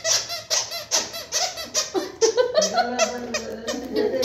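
Rubber squeaky toy squeezed over and over in quick succession, about four squeaks a second.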